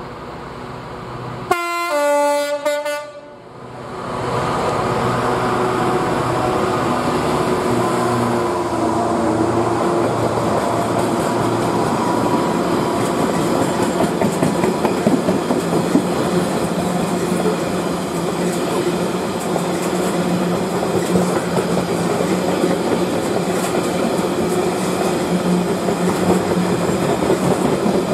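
A Class 66 diesel freight locomotive sounds its two-tone horn, a high note then a low one, about two seconds in. Then a long train of loaded box wagons runs past at speed, a loud steady rumble with wheels clattering over the rail joints.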